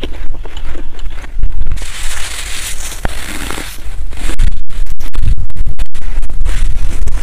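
Loud, close-miked crunching of fresh snow being bitten and chewed, grainy and scratchy, growing denser and louder about four seconds in.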